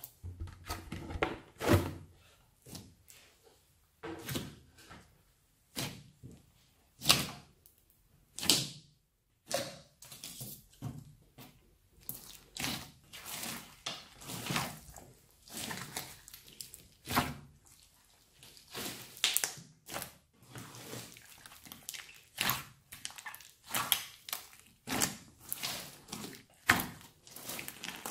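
Hands squeezing, stretching and folding a large mixed slime studded with sprinkles, making irregular squishes and sticky pops, a few louder than the rest.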